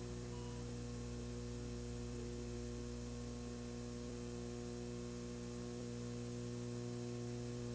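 Steady electrical mains hum with faint hiss, unchanging throughout, in the gap between announcements.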